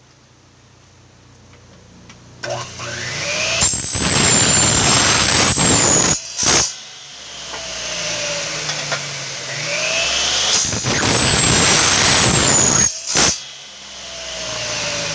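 Electric miter saw run twice: each time the motor whines up to speed, the blade cuts loudly through a thin aluminum extrusion for about two seconds, a sharp knock follows, and the motor winds down with a falling hum.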